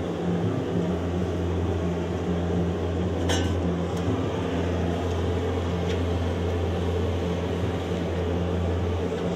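A steady low mechanical hum, with a sharp metal clink about three seconds in and a couple of fainter ticks as a meat skewer is handled and set into the rotisserie's metal skewer rack.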